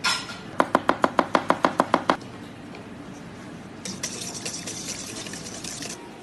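A metal utensil beating a tomato-paste and oil marinade in a stainless steel bowl: about a dozen sharp clicks against the bowl, some eight a second. After a pause come a couple of seconds of faster, lighter clinking and scraping.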